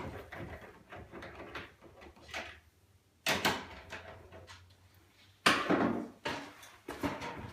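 Scattered knocks and clunks from a wooden IKEA wall cabinet and its suspension rail being worked on as the rail bolts are loosened. There are two louder knocks, about three seconds in and again about five and a half seconds in.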